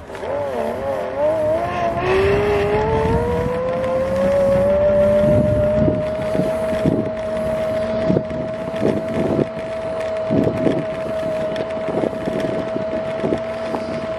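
Kugoo S1 Pro electric scooter's hub motor whining as it accelerates: the pitch wavers, then climbs for about five seconds and holds a steady tone at cruising speed. Knocks and rattles from the scooter riding over the road surface come through now and then.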